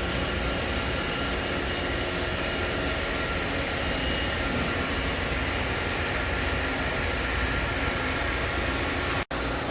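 Steady hum of powered-up machine-shop equipment, a low drone with a faint high whine over it, from the idling CNC Swiss lathe and its ancillary units. It drops out sharply for an instant near the end.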